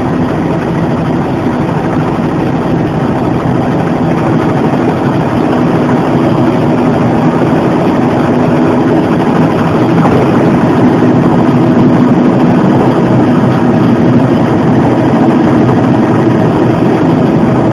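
Bell 206 JetRanger helicopter's turbine engine and rotor, heard from inside the cabin, running steadily as it comes in low to land. It grows a little louder about ten seconds in.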